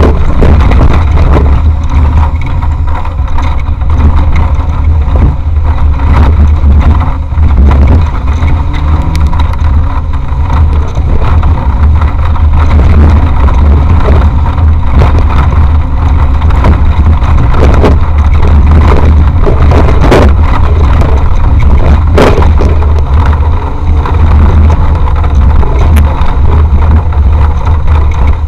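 Off-road competition vehicle driving on a rough course, recorded by an onboard action camera. Its engine runs under load as a loud, constant low rumble, with scattered knocks and rattles from the vehicle jolting over the terrain.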